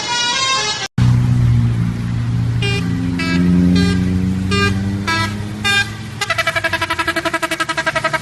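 A multi-tone horn tune breaks off about a second in. A bus engine then runs while a string of short horn toots sounds, and near the end a 'telolet' bus horn plays a fast pulsing tune, about eight pulses a second.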